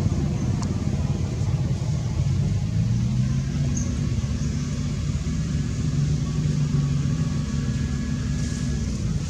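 Steady low rumble of an engine running, its pitch wavering slightly.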